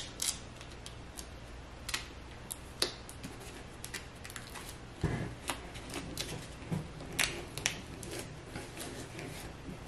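Clear plastic sole-protector film crackling and clicking irregularly as it is handled and pressed by hand onto the bottom of a sneaker, with a couple of dull knocks about halfway through.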